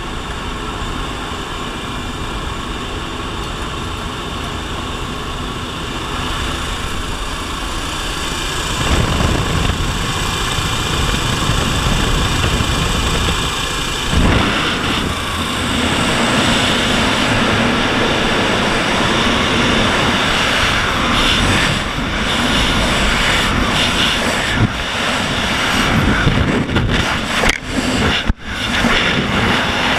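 Steady drone of a propeller aircraft's engines heard inside the cabin at an open jump door. About halfway through it gives way to a louder, even rush of wind.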